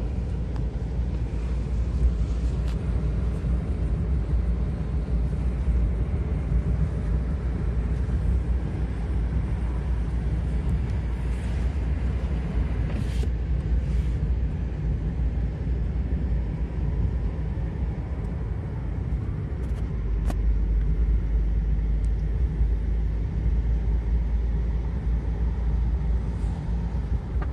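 Road and engine noise inside a moving car's cabin: a steady low rumble, with a few faint clicks here and there.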